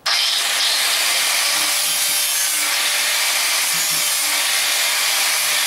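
Angle grinder grinding fiberglass at the edge of a boat hull, a loud steady grinding hiss that starts suddenly and cuts off just before the end.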